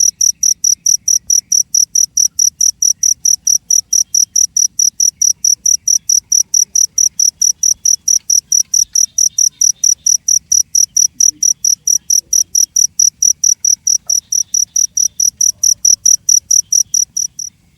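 Cricket chirping in a steady, fast rhythm of about five high-pitched chirps a second, stopping abruptly near the end.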